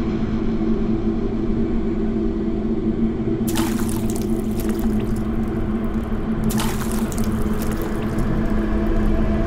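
Pool water sloshing and splashing, with two brief louder splashes about three and a half and six and a half seconds in, over a steady low hum.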